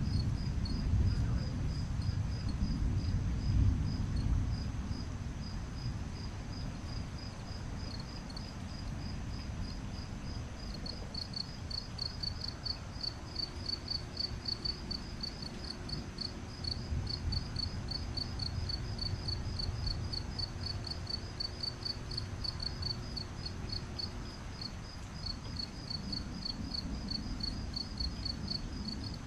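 Crickets chirping steadily in rapid, even pulses, with low rumbles of distant thunder swelling in the first few seconds and again past the middle.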